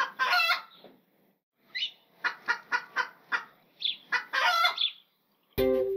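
Chickens clucking, with a rooster crowing: a call at the start, a quick run of short clucks, then another longer call. Ukulele music starts near the end.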